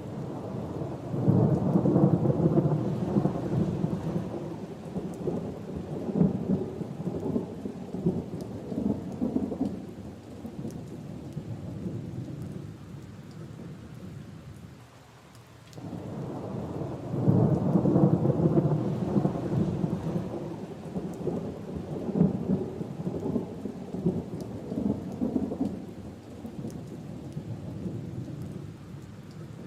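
Two long rolls of thunder over steady rain. The first breaks right away and the second about halfway through, each rumbling on for around ten seconds in several swells.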